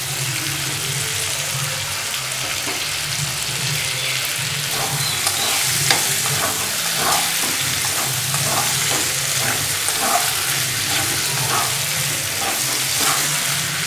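Chicken pieces sizzling in mustard oil and spice masala in a kadai while being stirred with a wooden spatula. There is a steady frying hiss, and from about four seconds in, repeated scraping strokes of the spatula against the pan come about once or twice a second as the fried chicken is mixed into the masala.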